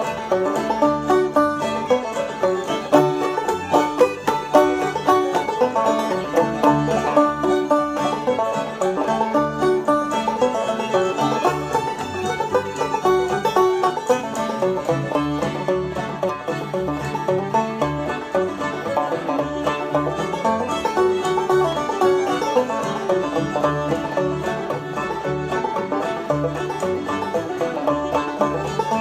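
Instrumental string-band tune, with plucked strings over a steady, regular bass beat: a player playing along to a backing recording.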